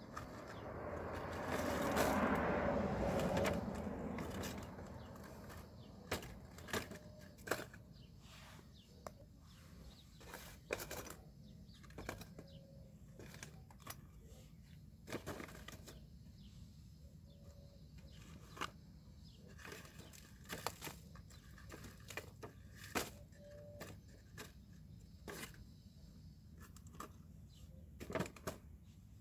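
Wire metal tongs clicking, scraping and knocking against small tin cans as one can is gripped, lifted, tipped and set down again, in scattered light clicks and knocks. A louder rushing noise swells and fades over the first few seconds.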